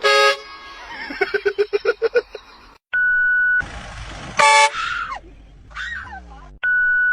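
Loud train-style air horn sounded in short blasts, one right at the start and another about four and a half seconds in. Short steady electronic beeps sound between the blasts, and there is a stretch of quick rhythmic pulses early on.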